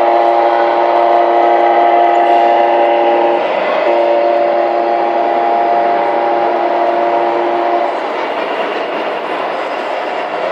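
A horn-like chord of several steady tones held for a long blast, breaking off briefly about three and a half seconds in and stopping about eight seconds in; a noisy hall hum remains after it.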